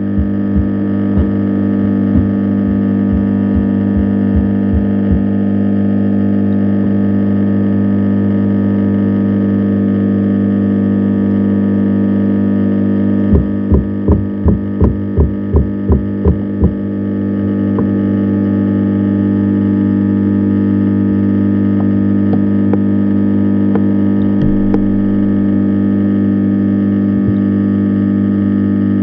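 A steady electrical-sounding hum, unchanging in pitch, with a run of about ten evenly spaced thumps, roughly three a second, about halfway through.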